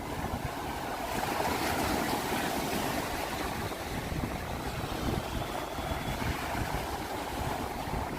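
Ocean waves washing steadily on the shore, with wind buffeting the microphone in a low, choppy rumble.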